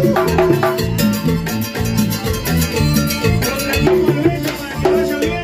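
Cumbia played by a live band: a steady dance beat of drums and shaken percussion under bass and a melody line, loud and unbroken.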